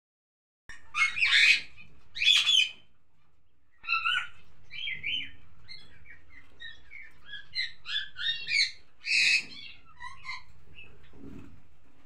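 Cockatiels calling: two loud harsh screeches near the start, then a run of short chirps and whistles, with another loud screech about nine seconds in.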